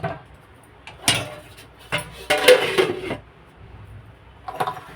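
Kitchen pots and utensils clattering: a few separate metal knocks and a longer rattling clatter in the middle.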